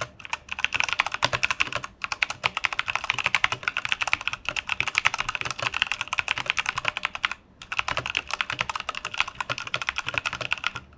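Fast typing on a Keychron K8 mechanical keyboard with brown tactile switches in an aluminium frame: a dense run of key clacks with brief pauses about two seconds in and about seven and a half seconds in. The keys carry not so subtle ping noises, because there is no desk mat under the keyboard.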